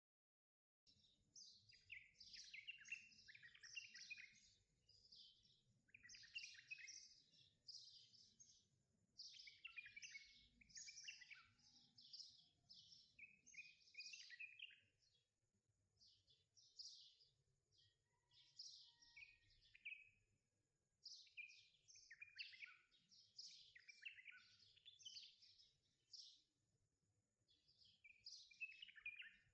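Birds chirping faintly in quick runs of notes, a burst of song every two to three seconds, beginning about a second in.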